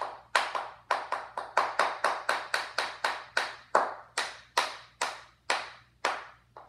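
Hand claps, about three a second and slightly uneven, each one sharp and quickly fading, from a child sitting on the floor.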